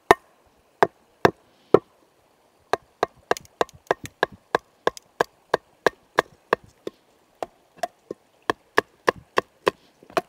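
Wooden baton knocking on the spine of a Battle Horse Knives Fieldcrafter, a thick 5/32-inch O1 tool-steel belt knife, driving it down through a small log to split it. A run of sharp knocks: a few spaced out at first, then about three a second from nearly three seconds in.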